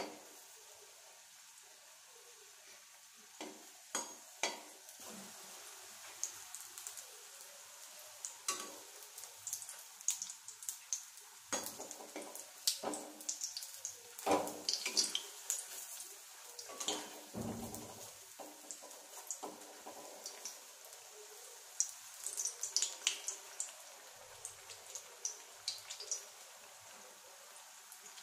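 Batter-coated green chillies (mirchi bajji) deep-frying in hot oil in a metal kadai: a steady sizzle full of small crackles and pops. Now and then a perforated slotted spoon knocks and scrapes against the pan as the fritters are turned.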